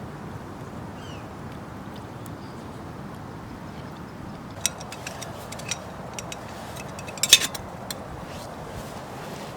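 Metal cookware clinking a handful of times over a steady background hiss, loudest about seven seconds in, where one strike rings briefly.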